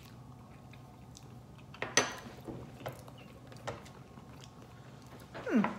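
Metal spoons clinking and tapping against dishes a few times, the sharpest clink about two seconds in, as hot sauce is tasted off the spoons. A short sound falling in pitch comes near the end.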